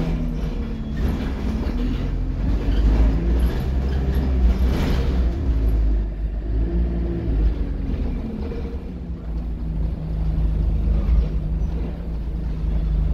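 Diesel engine and Allison automatic gearbox of an Alexander Dennis Enviro200 single-deck bus running, heard from inside the passenger saloon: a steady low drone with some rattling in the first half.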